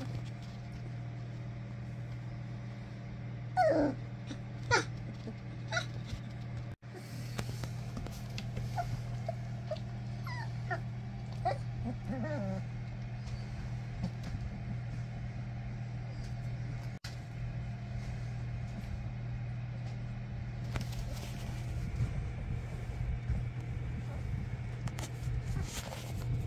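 English springer spaniel puppies whimpering and squealing in short high cries: a few about four seconds in, then a cluster around ten seconds in. A steady low hum runs underneath.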